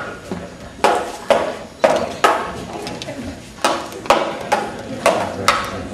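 Stage-combat prop swords clashing in a fight: a quick series of about nine sharp knocks, each with a short ring, with a pause of about a second and a half in the middle.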